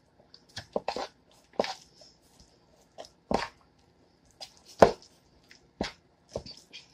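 A spoon stirring a thick cheese-and-mayonnaise mixture in a bowl: irregular soft knocks and squelchy scrapes, about eight of them, the loudest a little before the end.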